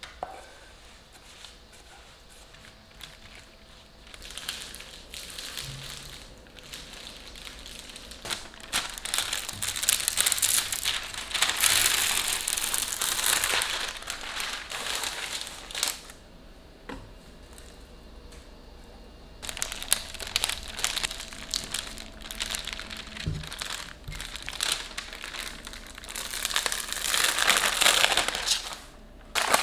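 Parchment paper crinkling and rustling as it is handled and pressed over a sesame-brittle mixture being flattened into a sheet. The rustling comes in two long stretches with a quieter lull between.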